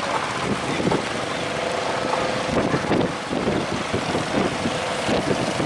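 A fishing boat's engine running steadily, over the rush of wind and surf.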